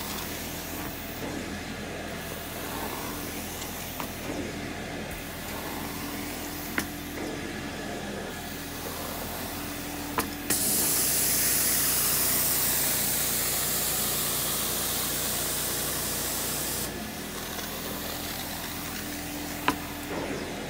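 Janilink carpet extractor running steadily with its motor hum while the wand works the carpet. About ten seconds in, a click is followed by a sudden loud hiss of spraying for about six seconds, which eases off slightly and stops, leaving the motor hum. A few other sharp clicks sound along the way.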